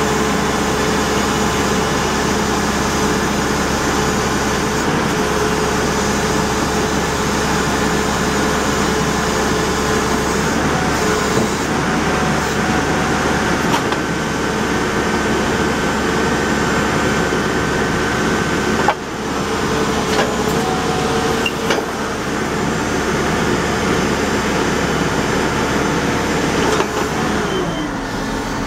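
Caterpillar TL943 telehandler's diesel engine running steadily at raised revs, its pitch gliding down near the end as the engine slows. A single sharp knock about two-thirds of the way through.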